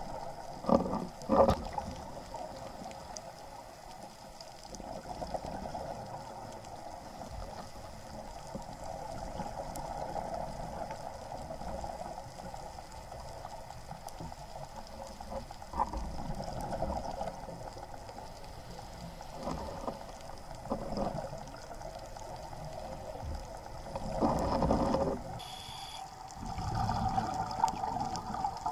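Underwater sound heard through an action camera's waterproof housing: a steady watery hiss with several louder gurgling bursts of bubbles, the kind a scuba diver's regulator releases on each exhalation.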